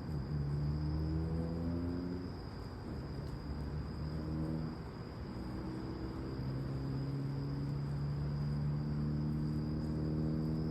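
Night insects, crickets, chirping in a steady high chorus over a low droning hum that shifts in pitch every few seconds.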